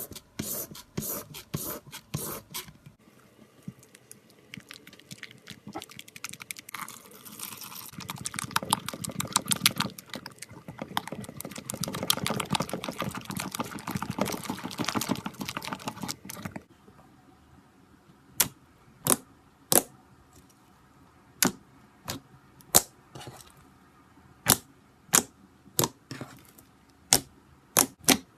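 A slime-filled stress ball being cut, with close-up crackling, squishy sounds that thicken into a dense sticky crackle for several seconds. This is followed by a series of separate sharp clicks about a second apart.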